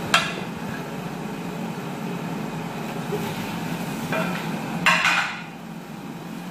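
Steady hum of kitchen ventilation, with a sharp knock just after the start and a brief louder clatter about five seconds in.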